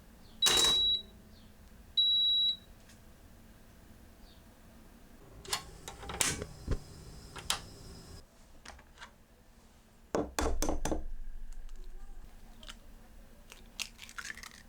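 Two short, high electronic beeps about a second and a half apart, then a few scattered clicks and knocks, and a quick run of knocks about ten seconds in that fades away over a couple of seconds.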